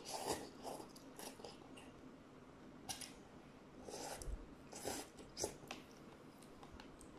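A person eating instant cup noodles with metal chopsticks: a series of short, noisy slurps as the noodles are sucked in, with quieter gaps between them.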